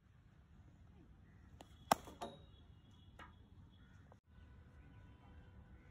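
A cricket bat striking the ball once, a sharp crack about two seconds in, with fainter knocks just before and after it.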